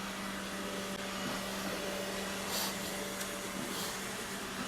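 Robot vacuum running with a steady motor hum and hiss, briefly brighter twice.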